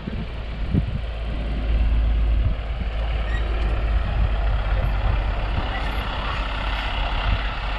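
Jelcz M101I Salus city bus driving up and passing close by, its diesel engine rumbling loudly as it goes by.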